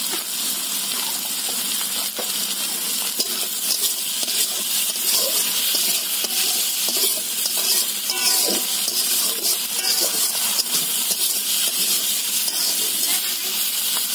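Prawns, onion and green chillies sizzling in hot oil in a metal wok, with a steel spatula scraping and clinking against the pan as they are stirred.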